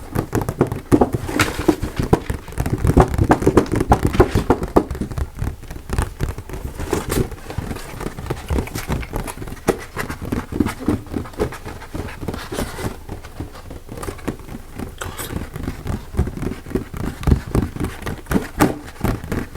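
Fast, aggressive ASMR tapping and scratching on an object close to the microphone: dense, irregular taps, many a second, with brief scraping.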